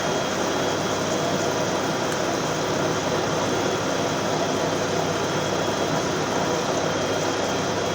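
CNC lathe running: a steady mechanical noise with a faint high whine held throughout.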